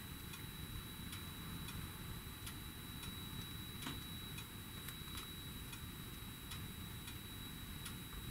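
A clock ticking steadily, about two ticks a second, with a faint steady high-pitched whine behind it.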